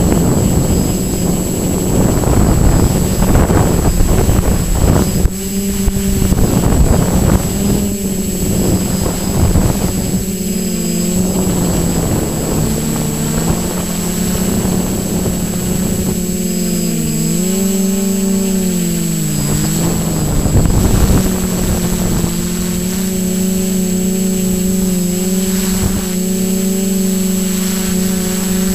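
Multirotor drone's electric motors and propellers droning close to an onboard camera, the pitch dipping and rising several times as the throttle changes. Gusts of wind buffet the microphone in the first half and again briefly later on.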